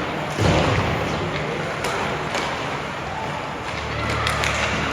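Ice hockey rink sounds: a heavy thump about half a second in, then scattered sharp clacks of sticks and puck over the arena's echoing hubbub. A low steady hum comes in near the end.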